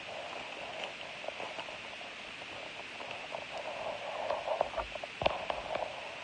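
Foil trading-card pack crinkling as it is torn open and the cards are slid out and handled, with a flurry of small crackles and clicks that grows louder near the end, topped by one sharp click about five seconds in.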